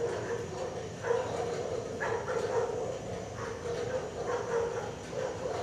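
Dog giving short, low woofs over and over, a few a second, with a steady low rumble underneath.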